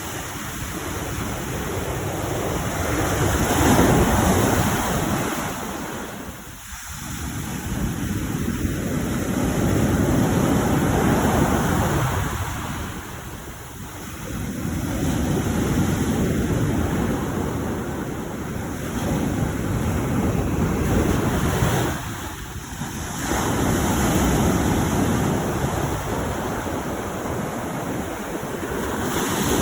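Mediterranean sea waves surging in and washing back, a loud rushing that rises and falls in slow swells about every five or six seconds.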